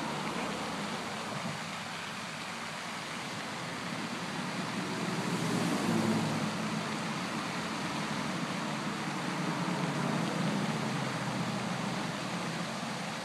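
Steady road traffic noise, with a vehicle passing and swelling louder around the middle and another smaller swell near the end.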